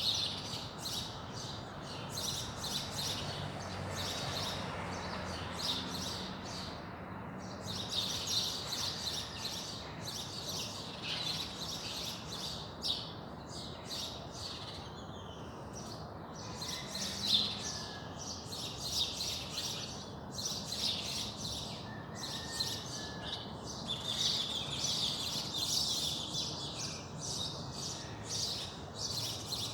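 A dawn chorus of many small birds chirping and twittering densely and without pause, over a steady low background hum.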